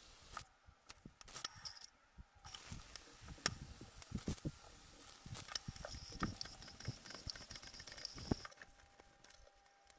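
Bevel safety razor scraping over lathered stubble in short, irregular strokes, mixed with scattered knocks and taps as the razor is handled.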